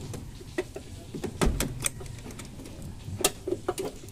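Clicks and light metal knocks of an improvised wire hook being fitted to a car battery's hold-down clamp, a cluster about a second and a half in and a sharp click a little past three seconds.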